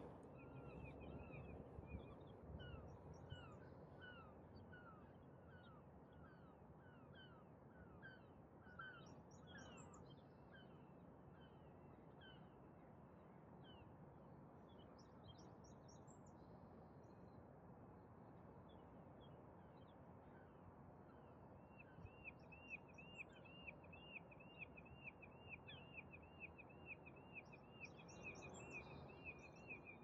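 Faint dawn birdsong over a steady low hum of distant city noise: scattered chirps and short repeated whistled notes, then from about two-thirds through, a fast even series of notes, about four a second.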